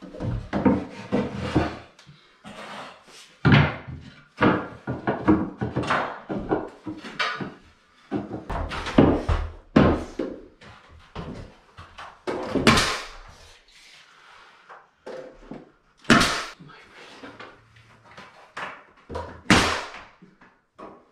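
Irregular knocks, thumps and handling noises of wooden crown molding being held up and pressed into place at a ceiling corner, with a few louder sharp bangs in the second half.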